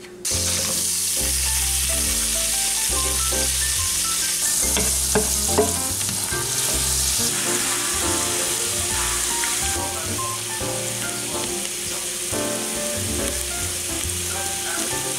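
Chopped onion and garlic sizzling in melted butter in a cast-iron skillet, with a wooden spoon stirring and scraping through them. A steady sizzle starts just after the beginning, with light background music carrying a bass line beneath it.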